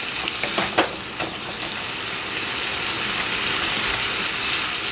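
Boiled flat beans sizzling in hot oil in a pan while a wooden spatula stirs them. There are a few scrapes and knocks in the first second or so, then a steady sizzle that grows a little louder.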